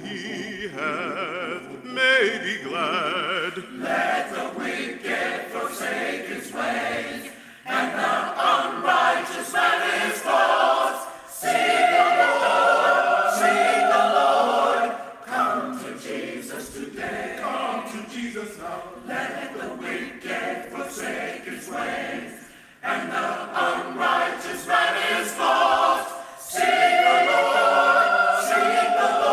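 A choir singing a sacred song in long phrases, the voices swelling and dropping back between phrases.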